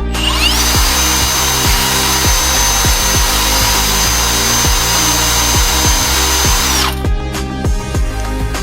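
Electric drill motor spinning up with a rising whine in the first half second, running steadily at a high whine, then cutting off suddenly about seven seconds in. Background music plays underneath.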